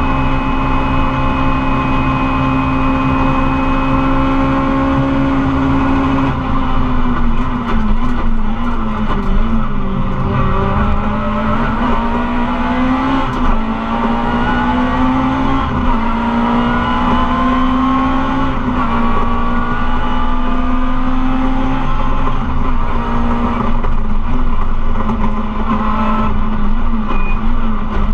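Rally car engine at racing speed, heard from inside the cockpit: held at a steady high pitch for about six seconds, then climbing in revs and dropping back again and again as the car accelerates, lifts and shifts through the stage.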